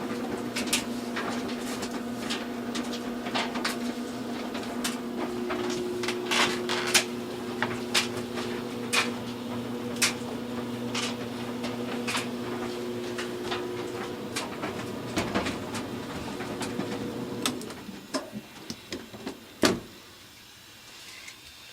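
Clothes dryer running: a steady motor hum with scattered clicks and knocks from the tumbling drum. The hum stops about 18 seconds in, followed by a few last knocks. The dryer starting and running is the sign that the new start knob works.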